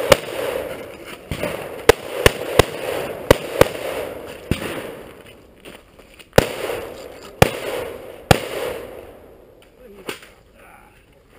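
Gunshots, about a dozen, fired singly and in quick pairs at uneven intervals through the first ten seconds, each followed by an echo off the range berms. The last shot, near the end, is fainter.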